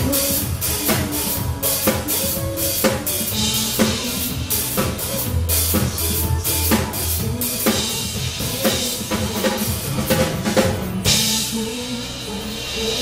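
Drum kit played live to a pop backing track: a steady run of kick, snare and rim hits over a bass line. Cymbals wash out from about two seconds before the end.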